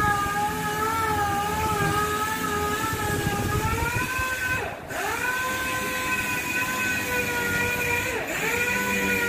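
A steady machine whine with several pitches stacked in it, wavering slightly, dipping sharply in pitch and recovering about five seconds in and again near the end.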